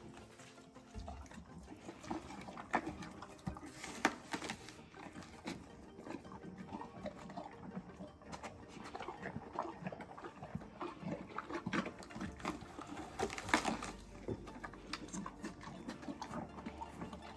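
A farm animal munching on a snack, with many short, irregular crunches.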